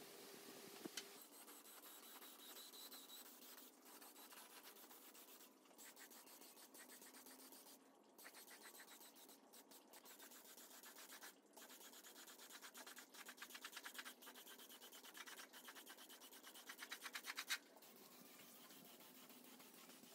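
Faint hiss of a paint spray gun coating a 3-phase electric motor's end cover and housing, after a brief brush scrub at the start. In the later part the spray comes in fast, even pulses that grow louder, then cut off suddenly.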